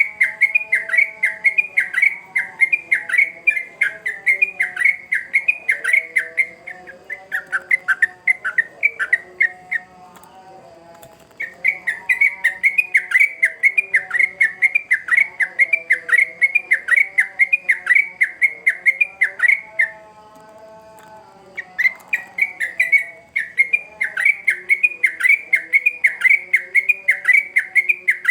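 Yellow-vented bulbul (trucukan) singing hard: fast, repeated, whistled chirps, about four a second, in long bouts broken by two short pauses.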